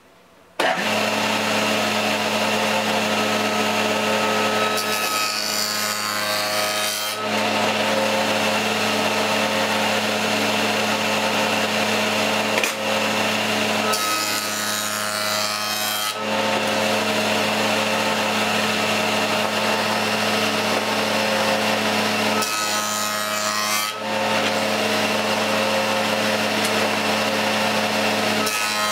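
A table saw switches on about half a second in and runs with a steady hum. Its blade makes four shallow cuts along a wooden board pushed over it with a push block; each pass adds a harsher rasping noise for one to two seconds, the first about five seconds in and the last at the very end.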